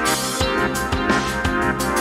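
Background electronic music with a steady drum beat, pitched synth notes and a bass that slides down in pitch on each beat.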